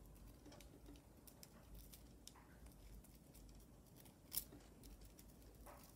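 Faint small clicks of long acrylic fingernails and a thin metal chain being picked at by hand to undo a knot, with one sharper click about four seconds in.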